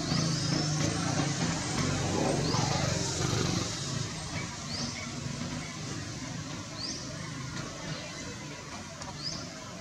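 A motor vehicle's engine hum, fading out after about three and a half seconds, over steady outdoor background noise. A short, high, rising chirp repeats about every two seconds.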